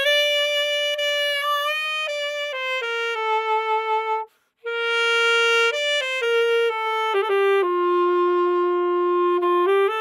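Solo alto saxophone playing a slow legato melody line, with a short break for breath a little after four seconds in, then settling on a long held low note near the end.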